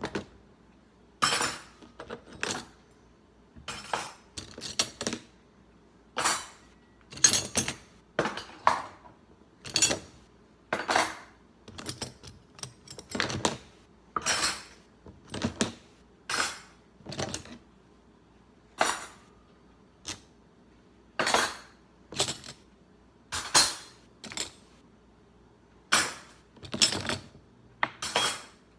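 Dishes and cutlery clinking and clattering as they are unloaded from a dishwasher and put away: a sharp clink about every second, irregular, some in quick pairs.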